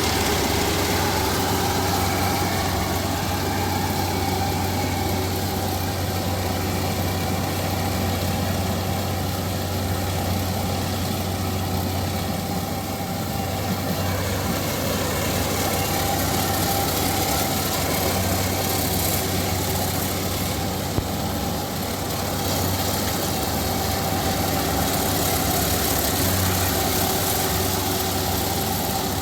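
Rice harvester's engine running steadily with a constant low hum.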